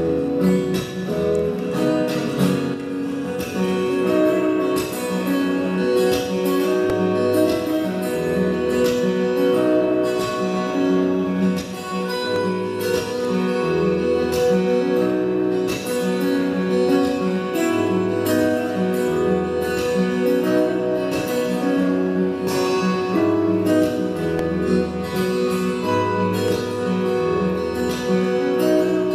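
Solo steel-string acoustic guitar played fingerstyle: an instrumental piece with ringing melody notes over low bass notes and a regular pulse of sharp plucked attacks.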